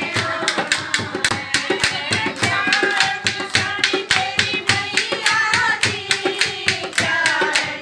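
A group of women singing a Hindu devotional bhajan to the Mother Goddess (Mata ka bhajan) together, with a steady rhythm of hand claps keeping the beat.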